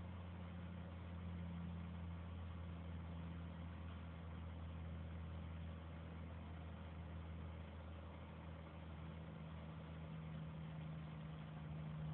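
Faint steady low hum with an even hiss, unchanging throughout, with no distinct clicks or movements: background electrical or machine hum.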